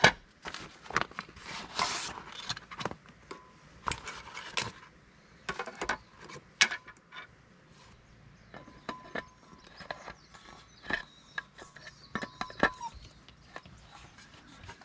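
Irregular clicks, knocks and rustling from a hanging camp lamp and its cone-shaped shade being unpacked and handled, with a sharp knock right at the start.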